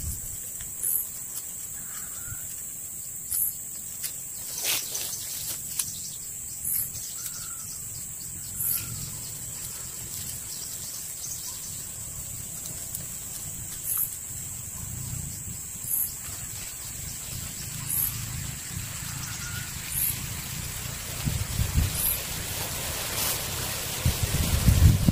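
Outdoor ambience of animal calls: a steady high-pitched drone with short, very high chirps repeating every second or two, and some low rumbling near the end.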